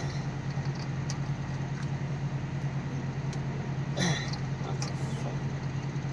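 A steady low hum, with light clicks and a short rustle about four seconds in as the oxygen sensor's wiring connector is handled and lined up.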